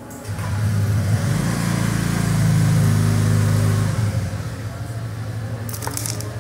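Motor vehicle engine running close by: a steady low hum that swells over the first second, holds loud for a few seconds, then drops back to a lower, steady level. A few short clicks come near the end.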